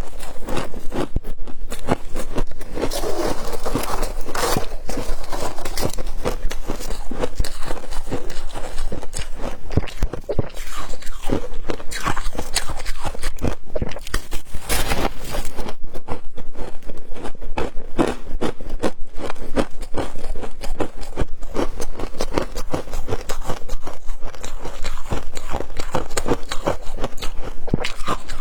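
Close-miked crunching and chewing of flavoured frost ice: a continuous run of crisp, crackling bites.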